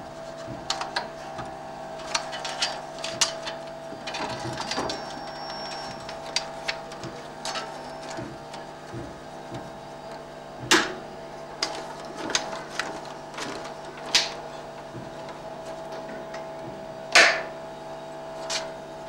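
A 70/35 mm cinema film projector running: a steady mechanical hum with a constant whirring tone, peppered with small irregular clicks and ticks, and two louder clacks about eleven and seventeen seconds in.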